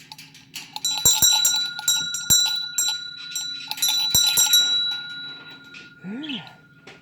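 Small metal bell rung several times, struck sharply about once or twice a second, its clear high ring hanging on between strikes.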